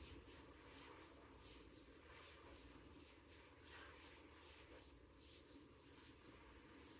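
Near silence: faint room tone with soft, irregular rustling.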